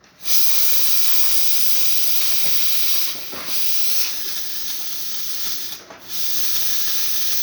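Nuova Simonelli Oscar espresso machine's steam wand hissing open with strong steam pressure, a sign the boiler is delivering full steam after service. The loud hiss starts at once, dips briefly twice, about three seconds in and near six seconds, and resumes each time.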